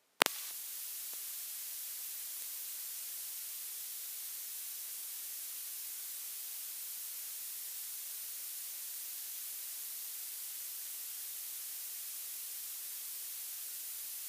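A sharp click, then a steady high-pitched electronic hiss: static on an audio line.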